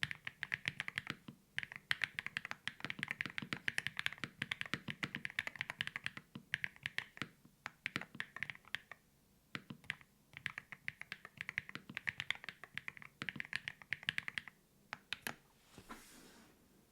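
Typing on a Gateron GT-60 Pro magnetic keyboard in a top-mount KBDFans GT-60 case, with a carbon-fibre plate and lubed Everglide Skyline V3 switches. Quick runs of keystrokes come with short pauses between them, and the typing stops about fifteen seconds in.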